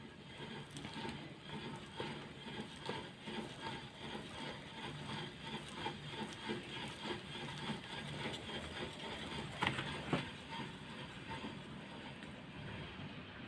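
Rear left wheel of a Lada Vesta SW creaking rhythmically as it turns, a squeak repeating about twice a second, with two sharper clicks about ten seconds in.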